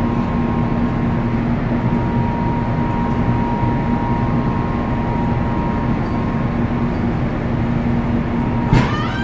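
Steady machinery drone on a cargo ship's deck, with a constant low hum and a fainter higher hum running through it.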